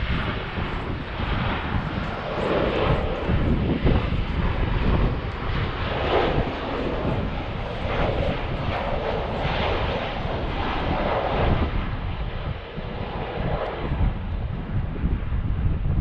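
Airliner flying low overhead: a steady engine rumble that swells and eases as it passes, with wind gusting on the microphone underneath.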